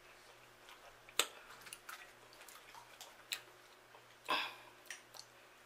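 Fingers picking through sauce-covered jumbo shrimp in a glass bowl: a few scattered soft wet clicks and squelches, the loudest a little over four seconds in as a shrimp is lifted out.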